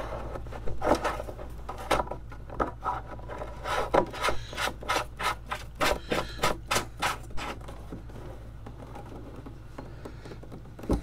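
Plastic nut being screwed by hand onto a 25 mm plastic cable gland through the wall of a plastic battery box: a run of short scratchy rubbing strokes, about three a second at their quickest, that thin out to faint rubbing near the end.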